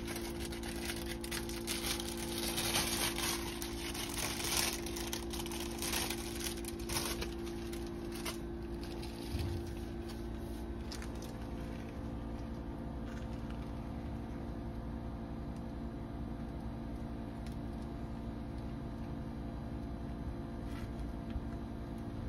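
Daikin Multi Lite R32 inverter outdoor unit running with a steady hum of several fixed tones. Over the first eight seconds or so it is joined by crinkling and crackling as a paper sticker label is peeled from its backing and handled.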